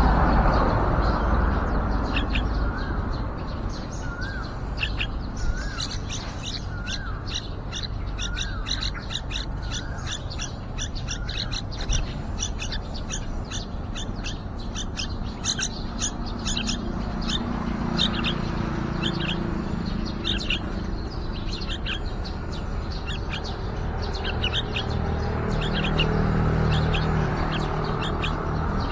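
Yellow-vented bulbul nestlings chirping in quick, high, repeated notes, most of them short. A few seconds in, a short series of lower, wavering notes comes in, all over a low background rumble.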